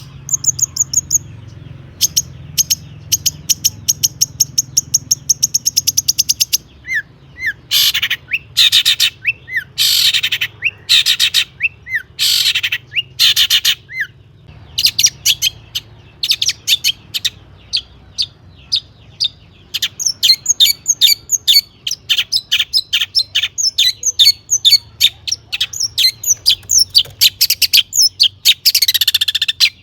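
Long-tailed shrike singing a loud, fast, varied song of rapid trills and chattering phrases, with a stretch of harsher, rasping notes in the middle.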